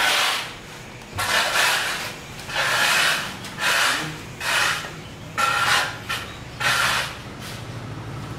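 Plastic wrapping and cardboard packaging rustling and rubbing as the contents of a pressure washer box are handled, in about seven short scrapes. A low steady hum joins about halfway through.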